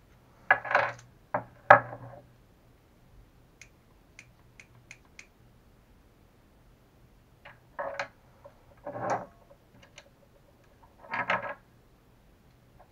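Small RC shock-absorber parts (plastic and metal bits, springs, shock bodies) clicking and clattering as they are handled and set down on a hard workbench. The sound comes in several short bursts with a few light ticks between them.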